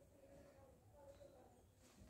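Near silence: room tone, with a faint, wavering cooing of a distant bird.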